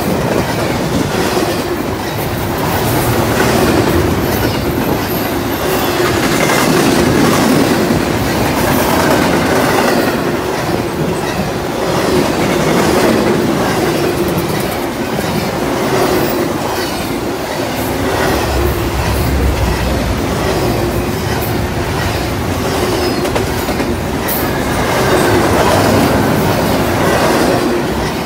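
Double-stack intermodal freight train's well cars rolling past at close range: a steady rumble of steel wheels on rail with a rhythmic clickety-clack as the wheels cross rail joints.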